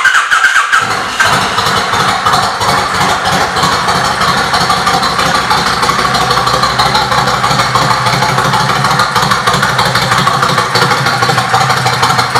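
Kawasaki Vulcan 1500 Classic V-twin engine breathing through an aftermarket Vance & Hines 2-into-1 exhaust. It fires up and settles within about a second into a steady idle.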